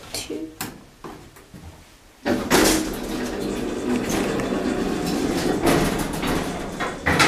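Elevator car: a few clicks as a floor button is pressed, then, from about two seconds in, a steady rushing noise of the car in motion, with a sharp click near the end.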